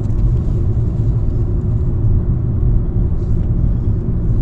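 Steady low road and engine rumble of a car being driven, heard from inside the cabin.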